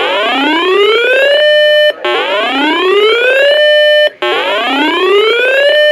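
Loud electronic whooping alert tone: a rising glide that climbs for about a second and a half, holds its top pitch briefly and cuts off, repeating about every two seconds, three times.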